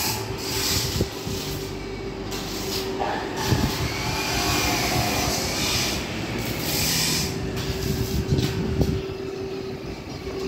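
Workshop noise: a steady mechanical hum with low rumbling and scattered knocks and clatter.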